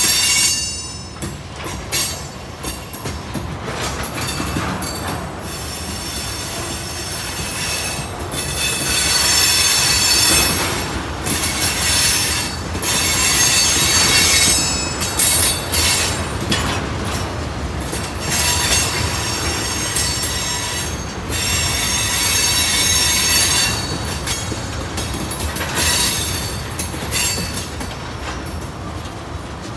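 Freight train of railroad tank cars rolling past close by: a steady low rumble from the wheels on the rails, with high-pitched wheel squeal that comes and goes in long stretches.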